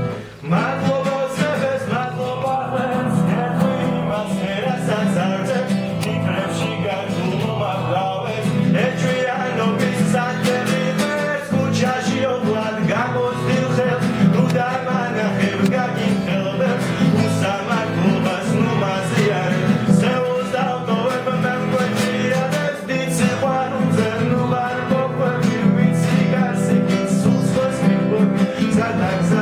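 A man singing while strumming a nylon-string classical guitar.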